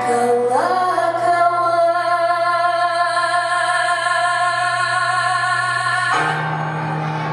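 A woman singing over backing music, sliding up into one long held note that stops about six seconds in while the accompaniment carries on.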